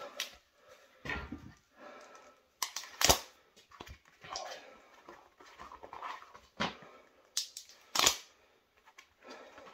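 Hands wrapping a steel bolt in cloth and leather pads for a bend: rustling and handling noise, broken by a few sharp slaps, the loudest about three seconds and eight seconds in.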